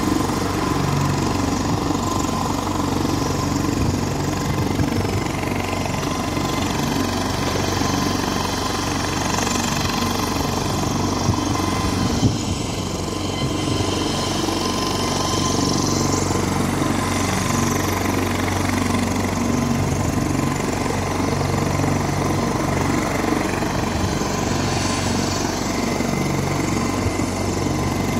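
Helicopter running on the ground with its rotor turning, giving a steady engine and rotor hum with a faint high whine.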